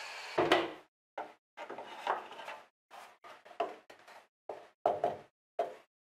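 The last moment of a table saw's blade spinning down, then a run of about ten short wooden knocks and clunks. They come in snatches broken by abrupt silences, the loudest about half a second in.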